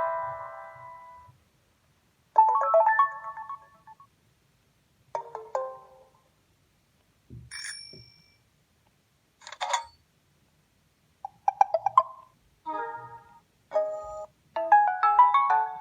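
Built-in tones of a Samsung Star 2 (GT-S5260) phone played one after another: the end of a chiming melody dies away, then a string of short electronic jingles and chimes, each a second or less with silences between, and a longer melodic ringtone begins near the end.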